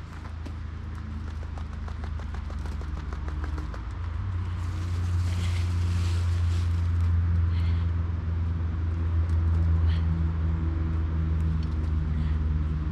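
A low, steady engine drone that grows louder over the first five seconds or so and then holds steady.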